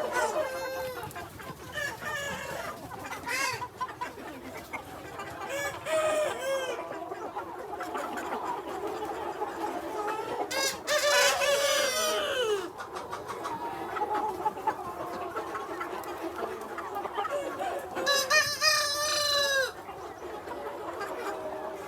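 Free-range chickens clucking steadily, with a rooster crowing twice: once about halfway through and again near the end.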